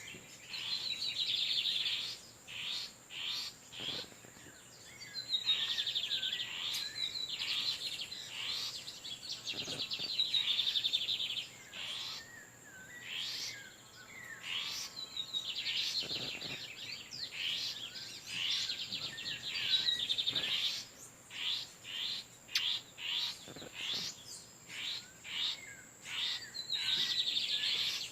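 Male lined seedeaters singing back and forth: bursts of fast, buzzy high trills lasting a few seconds, separated by quicker runs of sharp single notes.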